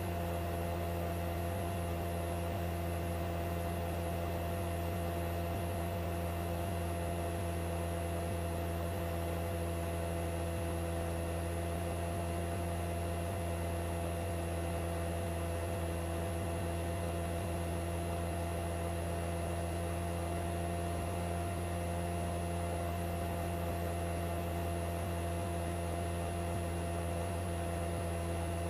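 Steady drone of a helicopter heard from inside the aircraft: a constant low hum with several fixed tones and a faint high whine above it, unchanging throughout.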